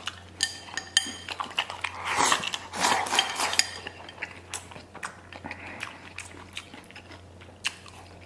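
Close-up eating sounds of a man chewing braised pork hock and rice: wet chewing and lip smacks with many small mouth clicks. Breathy sucking-in noises come about two to three seconds in, with light taps of chopsticks against the bowl.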